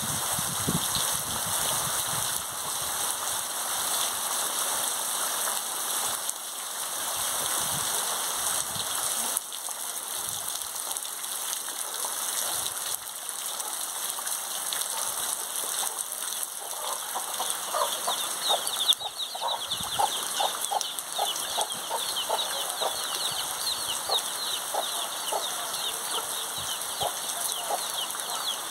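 Heavy rain falling steadily, an even hiss. A little over halfway in it gives way to a hen clucking and her chicks peeping continuously in quick, high chirps.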